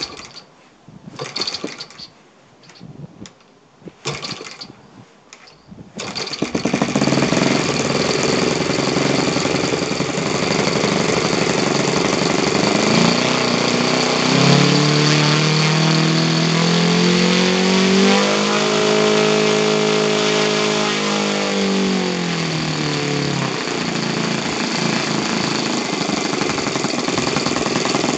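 Yamada FZ 53 four-stroke glow model engine with propeller starting on its first run after a rebuild: a few short bursts, then it catches about six seconds in and runs steadily. Its pitch climbs and then falls back again around the middle.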